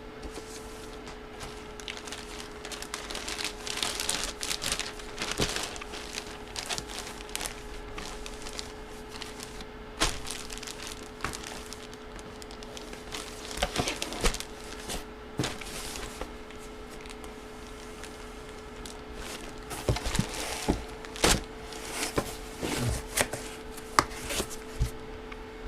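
Packaging being handled and opened by hand: plastic crinkling and rustling, with scattered sharp clicks and knocks, heaviest in two spells early and late, over a steady faint hum.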